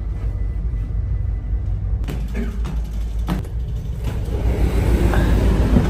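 Steady low rumble with no clear speech. About two seconds in the sound changes abruptly to a busier mix, with a few clicks and faint voices over the rumble.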